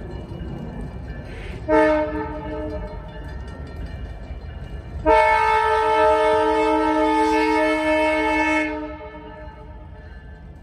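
Multi-chime air horn of a Canadian Pacific EMD GP20C-ECO locomotive: a short blast about two seconds in, then a long blast of nearly four seconds, both sounding a chord of several steady tones over a steady low rumble.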